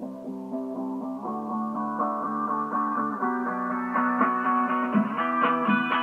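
Guitar music playing from a car stereo at music volume 30, heard inside the car's cabin with little deep bass. The plucked notes grow brighter and sharper in the second half.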